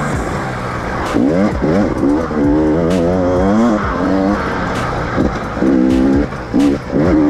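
Enduro dirt bike engine revving hard and unevenly, its pitch rising and falling every second or so as the throttle is worked over rough ground, with a few sharp knocks.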